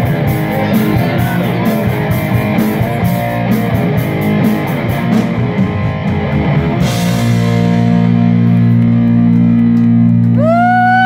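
Live rock band with electric guitar, bass guitar and drum kit playing, cymbals keeping time. About seven seconds in a crash ends the beat and the band holds a sustained chord, over which a note swoops up and back down near the end.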